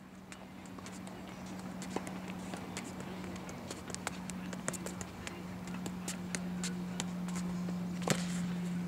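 Soccer ball being juggled on a hard court: irregular soft taps of the ball on feet and knees and shoes scuffing the surface, with a louder knock about eight seconds in. A steady low hum runs underneath, and the sound fades in at the start.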